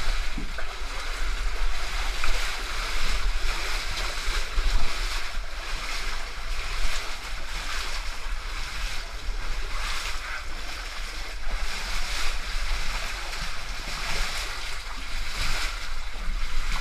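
Continuous rushing and splashing noise on a body-worn camera's microphone as its wearer moves through muddy water, with a heavy low rumble and surges about every second.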